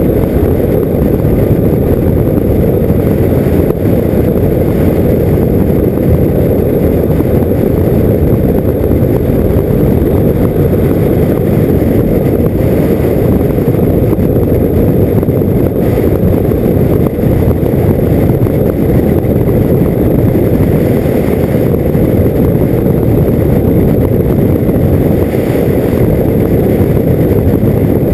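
KTM motorcycle cruising at steady speed, its engine buried in a loud, steady low rush of wind buffeting the bike-mounted camera's microphone.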